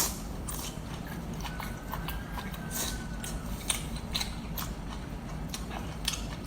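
Close-miked eating: chewing and biting on food, heard as scattered short clicks and smacks over a steady low hum.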